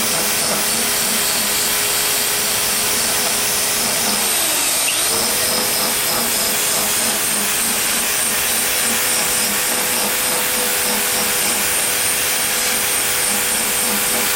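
Electric narrow-belt linisher (belt file) running steadily while polishing stainless steel pipe. Its motor pitch dips and comes back up about four to five seconds in.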